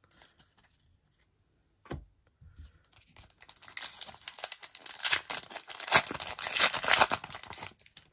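A foil Pokémon booster pack wrapper being torn open and crinkled as the cards are pulled out, a dense crackling that starts about three and a half seconds in and peaks near the end. A single soft knock comes about two seconds in.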